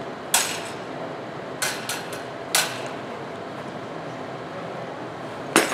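Steel rapier blades clashing in a fencing exchange: sharp metallic clinks, one just after the start, a quick pair at about a second and a half, another a second later, and a last one near the end, over steady background noise.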